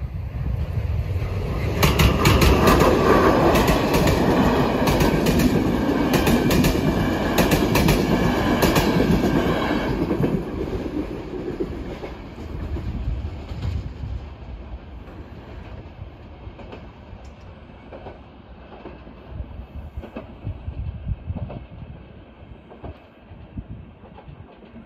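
Passenger train passing over a level crossing: a loud rumble with wheels clicking over the rail joints for about eight seconds, then fading as it moves away.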